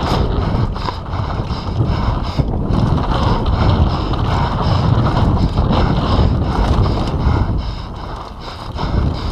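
Mountain bike ridden fast downhill, heard from a bike-mounted camera: wind buffeting the microphone over a constant rattle and clatter of the bike and its tyres on wooden boardwalk slats, then on dirt trail. It eases briefly near the end.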